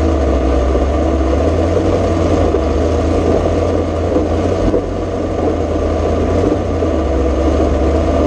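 Ford 351 Cleveland V8 in a rough-truck Bronco running at low revs, heard loud from inside the cab as the truck moves slowly. The engine eases off briefly about halfway through, then picks back up.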